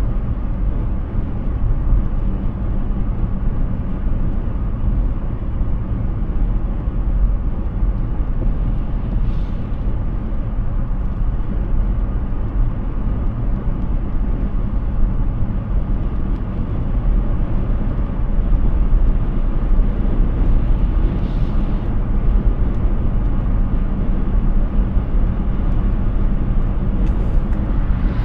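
Steady low road and tyre rumble of an electric Hyundai Ioniq 6 driving on a highway, with no engine sound. Brief hisses come and go about nine seconds in, around twenty-one seconds, and near the end.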